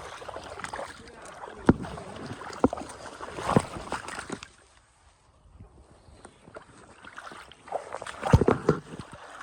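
Water sloshing and splashing with scattered knocks, stopping for a couple of seconds in the middle.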